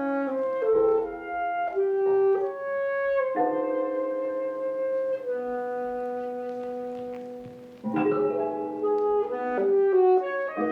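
Live wind ensemble playing a contemporary concert piece: short moving phrases, then long held chords that fade away, before a busier passage starts about eight seconds in.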